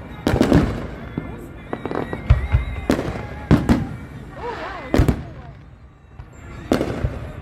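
Fireworks bursting overhead: a series of sharp bangs, about eight in all, at uneven intervals.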